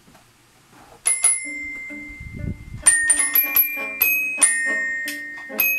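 Toy piano-xylophone with metal bars, its keys pressed to play a tune: one note about a second in that rings on, then a quick run of bright ringing notes from about three seconds in.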